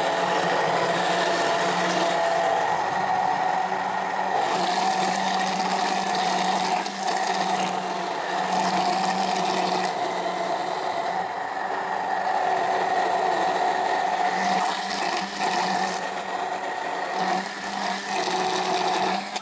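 Hand-held immersion blender running steadily with a constant motor whine, its blade churning an oil, mayonnaise and lemon dressing in a glass jug as it emulsifies into a thick, creamy sauce; it cuts off at the end.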